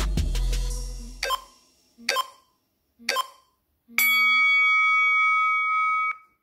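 Interval timer countdown: three short beeps about a second apart, then one long beep of about two seconds marking the end of the interval. Drum-backed workout music fades out just before the beeps.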